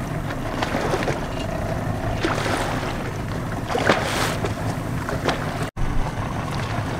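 Fishing boat's motor running slowly in gear at trolling speed, a steady low rumble, with water rushing and splashing along the hull and wind buffeting the microphone. The sound drops out for an instant near the end.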